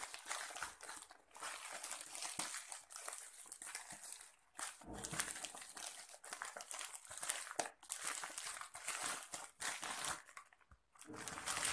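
Plastic courier mailer bag crinkling and rustling in irregular bursts as hands work it open and slide a cardboard box out of it.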